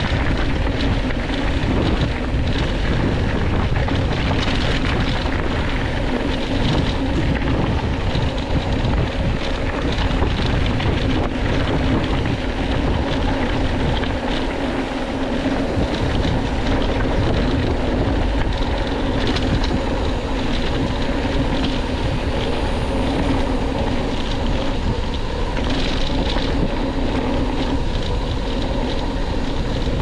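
Motorcycle engine running steadily under way, with wind rushing over the microphone.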